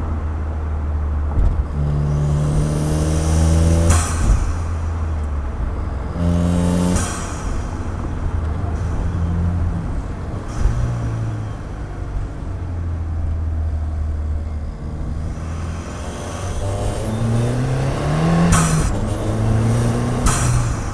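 2015 Ford Fiesta ST's turbocharged 1.6-litre four-cylinder, fitted with an aftermarket cold air intake, accelerating hard in short pulls, its pitch rising through each pull until a gear change about four, seven and eighteen seconds in. A thin turbo whistle climbs during the pulls, and the engine runs lower and steadier between them.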